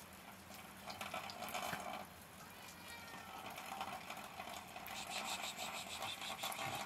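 A knife scraping scales off a fish in quick rasping strokes: a short run about a second in, then a longer, louder run in the last couple of seconds.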